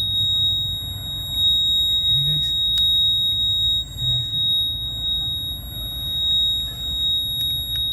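Lexus GS470 ABS alarm buzzer sounding one steady, unbroken high-pitched tone, the warning for a fault in the ABS brake system. It stops right at the very end.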